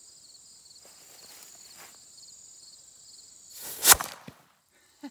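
A homemade mini black powder cannon (.357 bore, about half a tablespoon of black powder) fires a single loud shot about four seconds in, point-blank into a full beer can, over faint chirring crickets.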